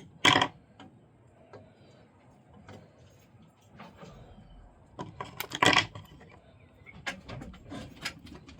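Small hard objects being handled on a work surface: two sharp clatters, about a third of a second in and in the middle, and scattered lighter clicks near the end.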